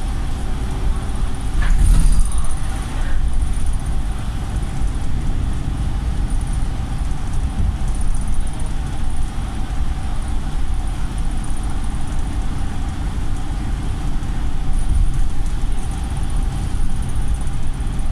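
Volvo single-deck bus heard from inside the saloon while under way: steady engine and road rumble, with one knock about two seconds in.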